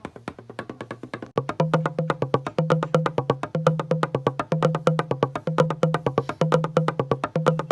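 Percussive music played on found materials: fast, even wooden-sounding knocks, joined about a second and a half in by a louder low two-note figure that repeats about once a second.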